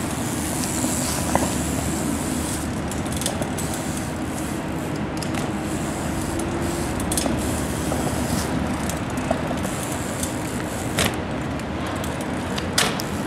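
Steady rumble of road traffic, with a few sharp clicks scattered through it; the two loudest come near the end.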